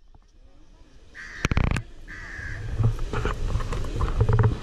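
A crow cawing twice, the first call about a second in and the second just after, with voices in the background toward the end.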